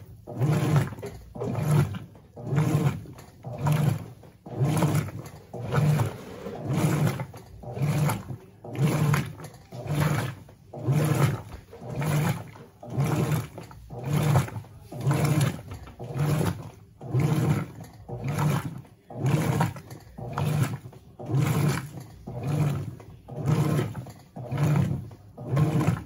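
Electrolux LB12Q top-loading washing machine agitating bath towels in soapy water: the agitator churns back and forth in a steady rhythm of about one stroke a second, each stroke a low surge of motor and sloshing water.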